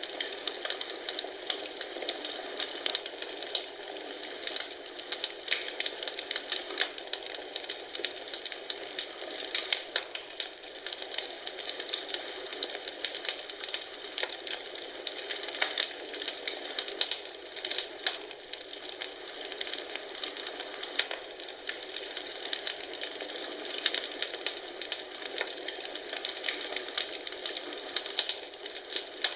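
Wood fire in a fireplace crackling steadily, with many small irregular pops and snaps over a soft hiss of burning.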